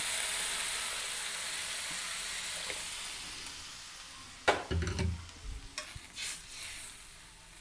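Water poured into a hot aluminium kadai of sautéed vegetables in oil, hissing and sizzling and dying away over about four seconds. Then a sharp metal clank, followed by a steel ladle knocking and scraping against the pan as the mix is stirred.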